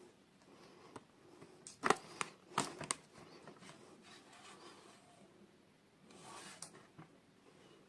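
Hands handling toy packaging and small plastic pieces. There is a cluster of sharp clicks and taps about two seconds in, and a brief rustle a little before the end.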